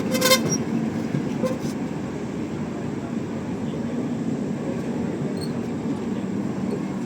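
Rajdhani Express train moving slowly out of the station, a steady low rumble of the rolling coaches. A brief, sharp high-pitched tone sounds right at the start, and a short knock follows about a second and a half in.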